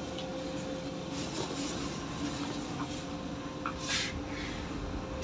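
Steady low room hum with a faint constant tone, and a brief rustle of stiff cotton suit fabric being unfolded and handled about four seconds in.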